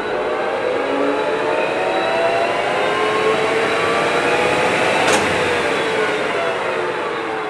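Dainichi DLG-SHB63-150 general-purpose lathe running, its headstock gears whining and rising in pitch as the spindle speeds up. About five seconds in there is a sharp click, and the whine then falls in pitch as the spindle slows.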